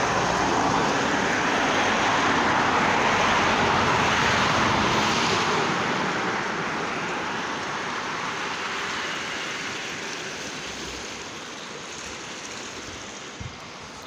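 River water rushing and churning over a low concrete weir, a steady rush that grows fainter over the second half.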